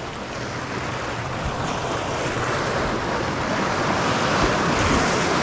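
Ocean surf washing along the jetty, a steady rushing noise that swells slowly and peaks near the end, with wind mixed in.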